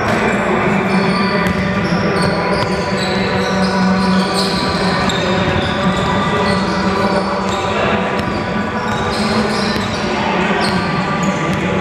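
A basketball bouncing on a hardwood gym floor and sneakers squeaking in short high chirps, all echoing in a large hall.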